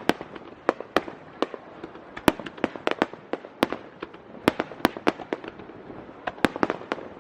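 Aerial fireworks bursting overhead: a rapid, irregular run of sharp bangs and pops, several a second.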